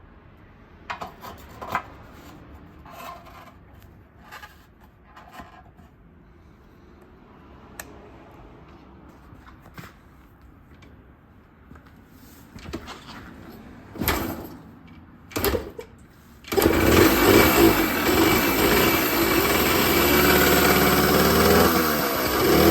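Yamaha MR50 two-stroke single-cylinder engine started from cold: scattered light clicks and knocks, then two heavier kick-start strokes, and about three-quarters of the way through it catches and runs loudly, its pitch wavering. It is filmed as a cold start with a sound the owner counts as abnormal.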